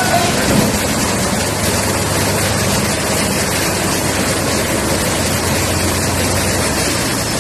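Truck engine running steadily as the truck reverses into a covered passage, a loud even noise over a low hum.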